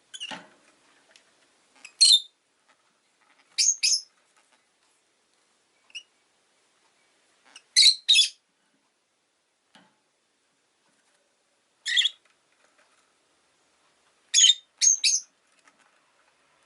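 Peach-faced lovebird giving short high-pitched chirps, singly or two or three in quick succession, every two to four seconds.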